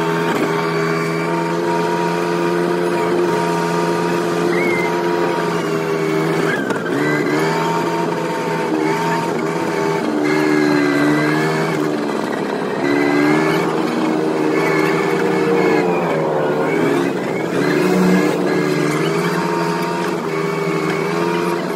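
A go-kart's small engine running under way. Its pitch drops and then climbs back about three times as the driver eases off and accelerates again.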